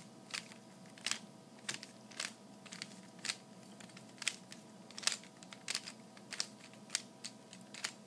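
Plastic 3x3 Rubik's cube being turned by hand: about a dozen short, sharp clacks as the layers snap round, at an uneven pace of one or two a second.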